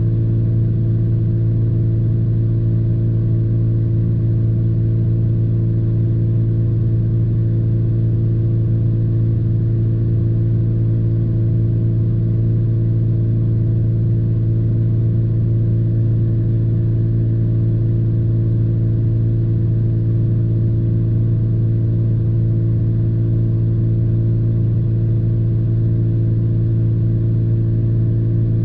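Pickup truck engine idling, heard from inside the cab as a steady, unchanging low hum.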